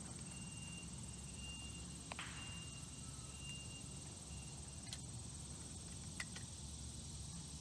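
Faint outdoor background noise with a few soft clicks and knocks, about two, five and six seconds in.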